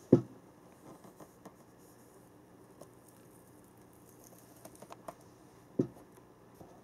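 Dull knocks and light taps on a cardboard box as it is handled and sat in: one knock at the very start, another about six seconds in, with faint scattered tapping and scratching between.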